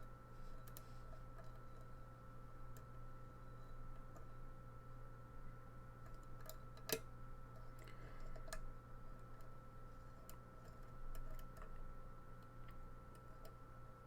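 Faint, scattered clicks of a lock pick and tension wrench working the pins inside a challenge pin-tumbler lock, with one sharper click about seven seconds in, over a steady low hum.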